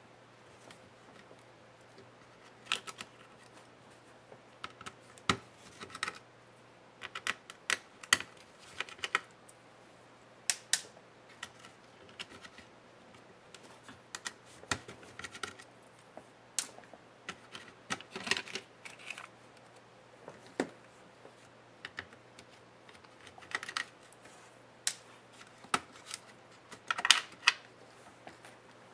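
Irregular small clicks and taps of a precision screwdriver and fingers against the plastic and metal of a laptop being taken apart, some in quick clusters, the loudest cluster near the end, over a faint steady low hum.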